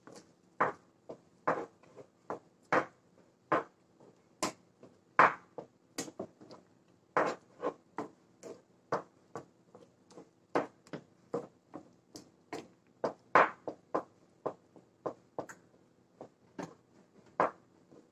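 Slotted wooden spatula scraping and knocking against a nonstick frying pan while stirring thick semolina kesari, in short irregular strokes about two a second.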